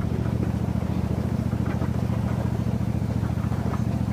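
Park train's engine running steadily with a low, even throb and no change in speed.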